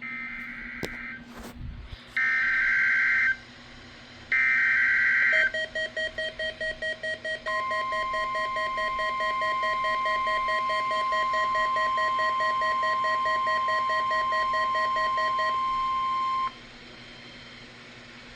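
NOAA Weather Radio Required Weekly Test signal. Three short bursts of screeching EAS/SAME header data come first, then the steady 1050 Hz warning alarm tone holds for about nine seconds and cuts off abruptly. A separate rapid pulsing beep runs alongside the tone for most of its length.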